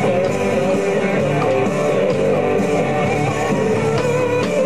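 Live band music with electric guitar playing.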